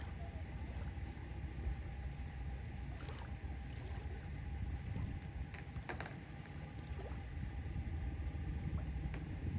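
Engine of a 1977 runabout motorboat idling low and steady as the boat moves slowly off the dock, with a few faint clicks midway.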